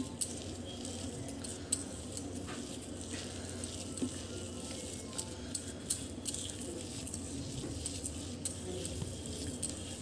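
Hands kneading mashed potato with chopped vegetables and spices in a steel bowl: a soft, steady squishing, broken by about a dozen sharp, irregular clinks against the bowl's metal.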